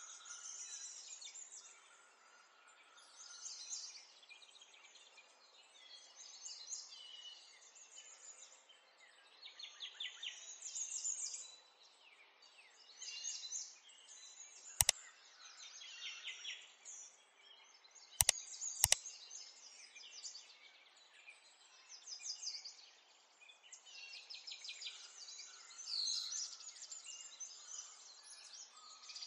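Birds chirping and trilling in quick, high-pitched phrases throughout. There are three sharp clicks, one about halfway and two in quick succession a few seconds later.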